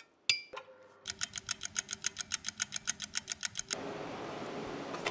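A single metal clink, then a commercial stand mixer running with a fast, even clatter of about nine or ten a second over a steady hum, mixing sourdough dough. The clatter cuts off suddenly near the end, leaving a steady hiss.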